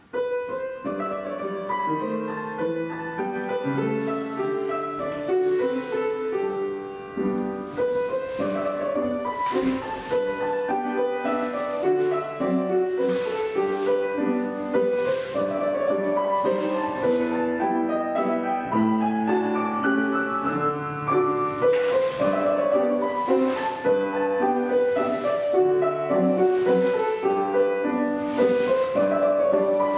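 Piano playing a classical ballet-class accompaniment for an exercise at the barre, starting suddenly at the beginning.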